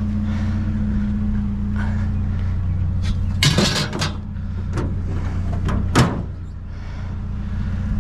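Truck engine idling steadily, with a few sharp knocks and clunks partway through, the loudest about six seconds in.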